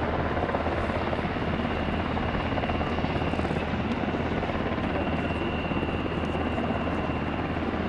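Aircraft engines running steadily during a flypast, a continuous loud noise with a thin high whine over a low hum.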